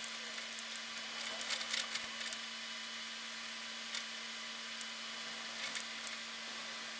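Steady hiss and a constant low hum with no real sound behind them: the noise floor of a silent audio track. A few faint clicks crackle through it between one and two and a half seconds in, again around four seconds, and near six seconds.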